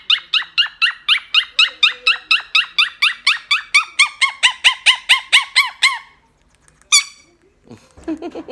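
Quaker parrot (monk parakeet) giving a fast, even run of short repeated chirping calls, about four to five a second, that stops after about six seconds. About a second later comes one sharp, higher call.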